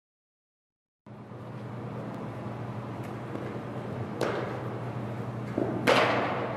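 Silent for about a second, then the steady hum and room noise of an indoor baseball practice facility. Two sharp knocks of a baseball being hit and fielded come about four and six seconds in, the second one louder and echoing.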